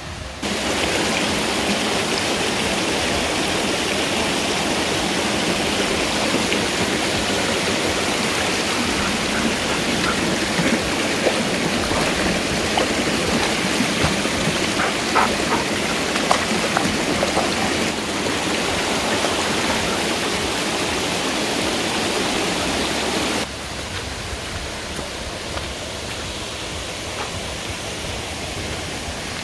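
Mountain stream rushing over rocks, a loud steady rush of water with a few small splashes from a dog wading in it. About two-thirds of the way through it cuts off suddenly to a quieter, steady hiss.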